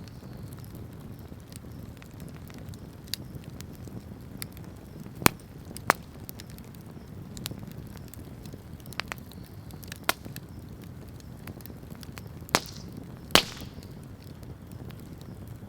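Wood bonfire crackling: a low steady rumble of burning with many small ticks and scattered sharp pops, about five of them loud, between roughly five and thirteen seconds in.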